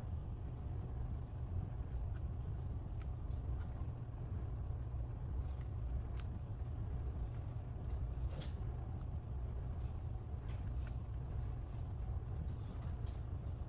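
Steady low background rumble with a few faint, short clicks and taps of small tools handling the phone's parts, the clearest about six seconds and eight and a half seconds in.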